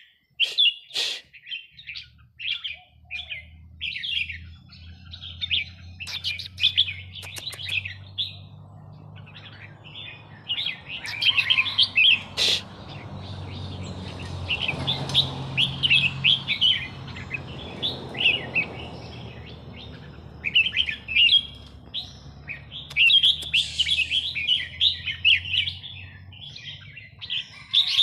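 Caged Burmese-strain red-whiskered bulbuls singing repeated bright warbling phrases with short gaps between them. A few sharp clicks occur, and a low steady hum runs underneath from about two seconds in.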